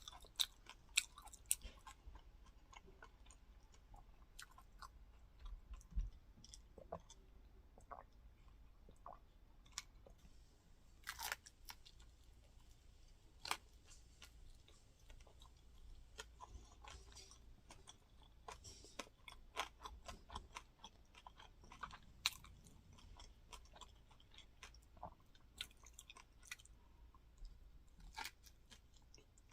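Close-up chewing of crunchy fried rice crust (cơm cháy) with pork floss: irregular crisp crunches and mouth sounds, a few louder bites among them.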